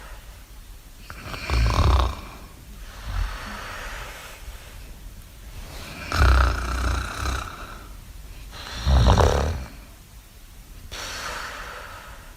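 Snoring sound effect: three loud, low, fluttering snores, each followed by a long, quieter breathy exhale.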